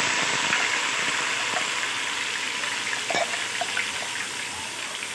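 Ground onion paste sizzling hard in hot mustard oil in an aluminium pot; the sizzle slowly dies down. A couple of light ladle knocks on the pot, about three seconds in and at the end.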